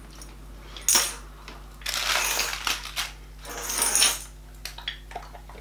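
Metal jingling and clinking of a dog's collar hardware as the collar is taken off: a sharp clink about a second in, then two longer jingling bursts around two and four seconds in.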